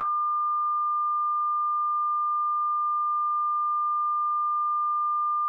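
Broadcast test tone: one steady, high electronic beep at a single unchanging pitch, starting abruptly out of silence. It is the off-air tone of a TV channel signing off.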